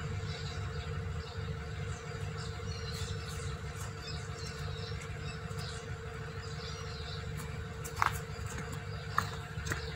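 Garden ambience: faint, scattered bird chirps over a steady low rumble and a constant hum, with a couple of sharp clicks near the end.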